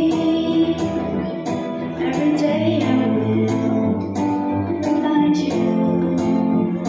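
A girl singing a slow ballad into a microphone over strummed acoustic guitar accompaniment.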